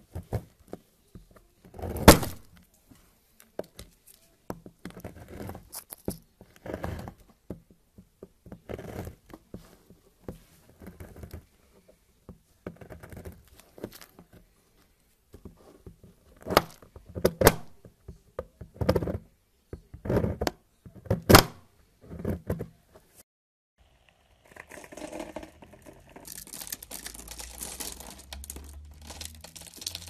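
Knife blade cutting through a block of soap and its piled shavings: separate cutting strokes a second or two apart, a few much louder than the rest. Near the end the strokes give way to a steady fine crackle of soap being cut into small cubes with a small blade.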